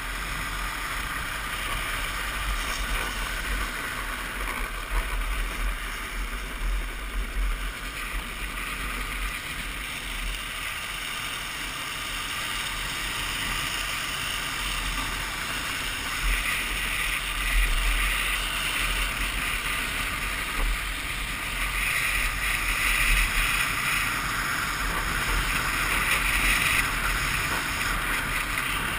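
Wind rushing over the microphone of a drift trike speeding down an asphalt road, along with the steady hiss of its wheels on the pavement. The hiss gets louder in several stretches during the second half.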